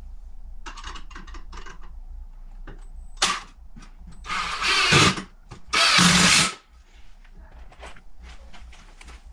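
Power drill driving 2.5-inch screws into a frame: two runs of about a second each, around the middle, with handling knocks and clicks before them.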